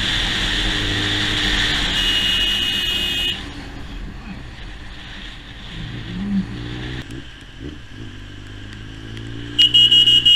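Motorcycle engine running as the bike rides along a street, under a loud rushing noise for the first three seconds, then quieter with the engine pitch rising and falling. Near the end a vehicle horn blares loudly.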